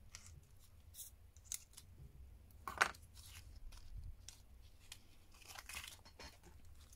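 Light rustling and small clicks of a glitter-cardstock paper flower being handled, with excess picked off it using metal tweezers. There is one louder, brief rustle just before three seconds in.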